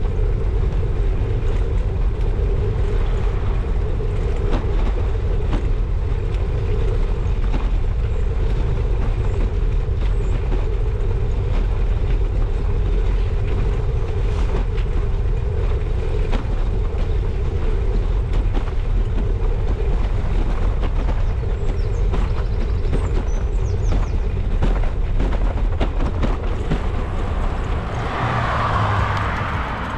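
Wind buffeting the microphone of a camera on a moving bicycle, over the rumble of tyres on rough tarmac, with frequent small knocks and rattles from bumps in the road. A swell of louder noise comes near the end.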